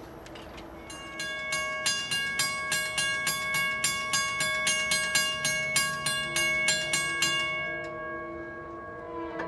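Railroad grade-crossing bell ringing rapidly, a little over two strikes a second, while the crossing gate arm lowers. It starts about a second in and stops once the gate arm is down, a couple of seconds before the end.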